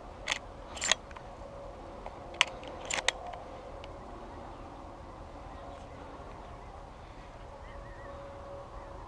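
A few sharp clicks in the first three seconds, two of them close together near the three-second mark, then quiet outdoor ambience with a faint steady hum and a short wavering bird chirp near the end.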